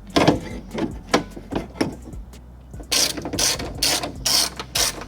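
Hand ratchet clicking while fastening bolts inside a car door: scattered clicks at first, then a faster, louder run of clicks about three seconds in.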